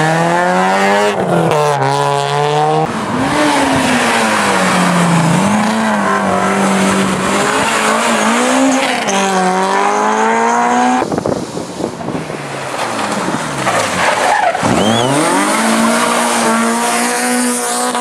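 Rally car engines at full throttle: pitch climbs and drops back at each upshift in the first few seconds, then holds high and steady. About eleven seconds in the sound changes abruptly to another car, whose engine pitch falls sharply and then climbs again as it accelerates away.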